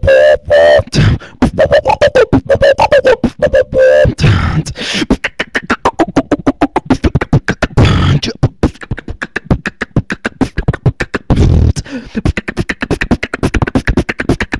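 Solo beatboxing heard over Ventrilo voice chat: a fast, steady stream of mouth clicks and snare-like hits. Hummed pitched notes sit over the beat in the first few seconds, and deep bass kicks land about halfway through and again later.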